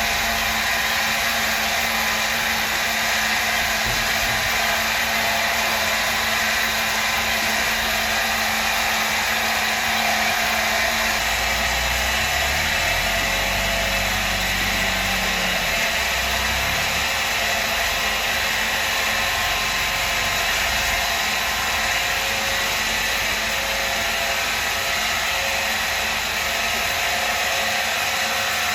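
A machine running steadily with a loud, even high-pitched whir, with a deeper rumble added from about 12 to 21 seconds in.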